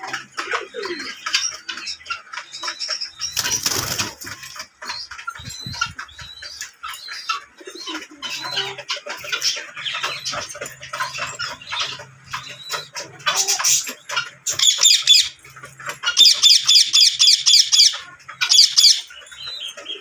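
Indian ringneck parakeets chattering and chirping continuously. There is a brief noisy rustle about four seconds in, and from about two-thirds of the way through come loud runs of rapid, harsh, repeated screeching calls.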